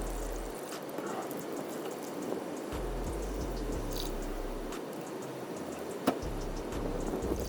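Old engine oil draining in a steady stream from the oil pan's drain hole into a catch pan, with one sharp click about six seconds in.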